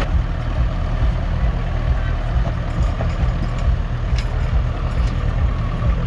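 Massey Ferguson tractor engine running steadily with a low pulsing rumble while pulling a plough through the furrow.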